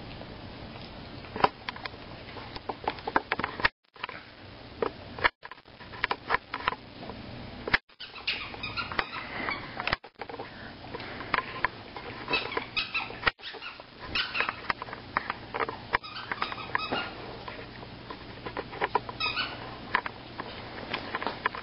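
A corgi chewing and gnawing a plush giraffe toy: a busy run of wet clicks and crackles from teeth and mouth on the fabric, mixed with short squeaks.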